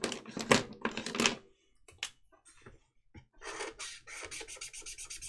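A few sharp clicks and knocks of a marker being picked up and handled, then a Tombow Dual Brush marker's nib rubbing on the notebook paper in quick back-and-forth strokes as a square is coloured in, starting about three seconds in.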